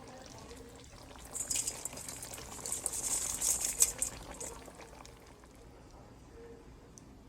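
Bicol Express sizzling and bubbling in a pan, a crackling hiss that swells about a second in and dies down after about three seconds.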